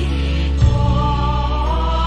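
Voices chanting a Buddhist liturgy in slow, sustained tones over a low, steady musical backing whose notes change in steps, with one short struck sound about half a second in.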